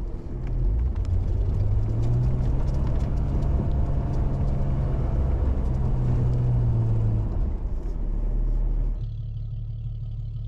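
Old Jeep Cherokee's engine working under load as its plow pushes heavy, packed snow, the engine note rising and easing off twice, with crackling and crunching of snow. About nine seconds in, the engine drops back to a lower, quieter running note.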